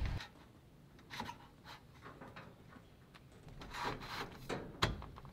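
A few short scrapes and rubs of sheet-metal roof trim being handled and fitted at the roof edge, sparse at first and more frequent from about three and a half seconds in.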